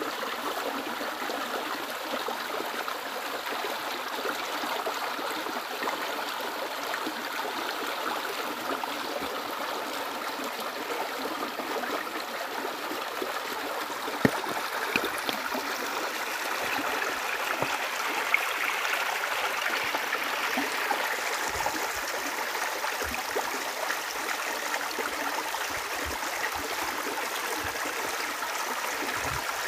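Shallow river running over rocks: a steady babbling rush of water. A few sharp clicks stand out about halfway through.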